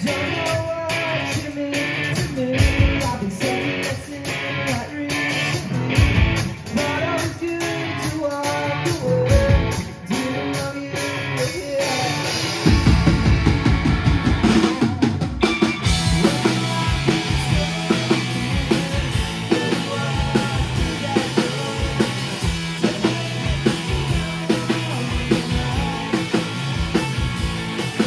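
Live indie rock band playing: electric guitars, electric bass and drum kit. About 13 seconds in, the band comes in louder and fuller with a heavier low end.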